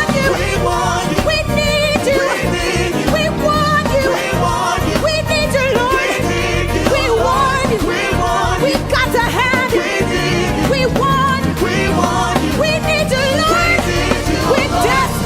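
Live gospel worship music: a band playing loud and steady, with wavering sung or held melodic lines over a driving low beat.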